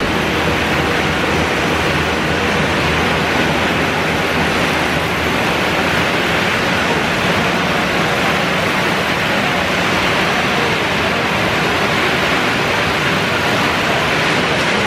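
Pet food extrusion production line running: a loud, steady machine noise from the extruder and its motors, with no breaks or changes.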